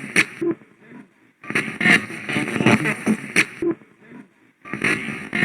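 Radio Shack 12-589 portable radio, hacked to sweep stations continuously, giving choppy fragments of broadcast sound and static. It cuts out twice, for about a second each time: once shortly after the start and once near the end.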